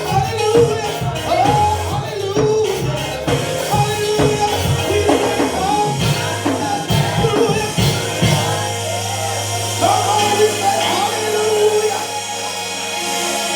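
Gospel praise music from a live church band with singing over a steady beat. About eight seconds in the beat thins out, leaving a long held bass note under the melody.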